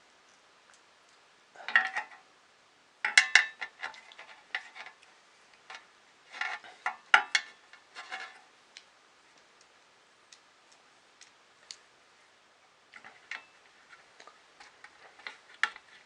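Small metal parts clicking and rattling in short clusters as nuts, bolts and printer parts are handled and fitted by hand, with scattered single ticks between the clusters.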